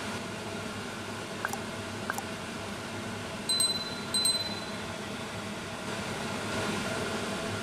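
Two bright bell-like dings, about two-thirds of a second apart, from a subscribe-button notification sound effect, over a steady background hum and hiss. Two faint short ticks come a couple of seconds before the dings.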